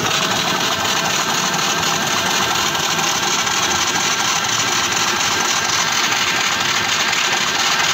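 Freshly rebuilt Yamaha Soul GT scooter's single-cylinder four-stroke engine running steadily at idle with a light rattle. It has new cylinder block and piston rings and is being run to check that the oil pump is circulating oil up through the engine.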